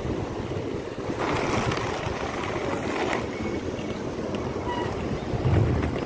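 Wind buffeting the microphone over the steady rolling of Oxelo MF500 inline skate wheels on asphalt, with a stronger low gust near the end.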